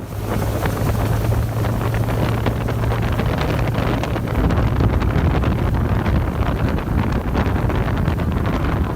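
Speedboat with a Tesla-motor electric outboard running fast across the water: a loud rush of water and air, with heavy wind buffeting on the microphone and a steady low hum through the first four seconds or so.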